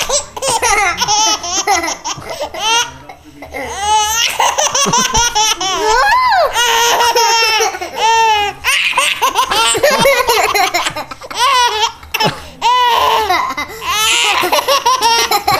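Baby laughing hard and high-pitched, in repeated bouts of rapid laughs with short pauses for breath between them.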